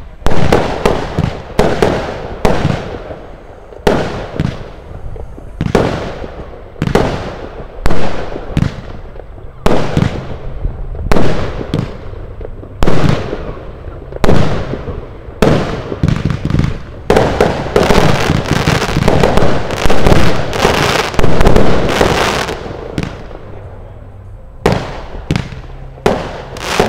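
Consumer firework battery (cake) firing its shots: a string of sharp bangs with crackling tails, about one or two a second, packing into a dense volley about two-thirds of the way through before thinning out near the end.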